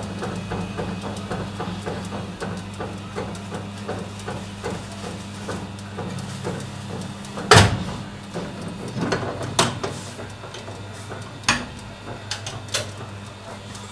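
Baumkuchen spit oven running with a steady electric hum and a rhythmic ticking of about three ticks a second from the turning spit, which fades out about six seconds in. Four sharp knocks follow in the second half, the first the loudest.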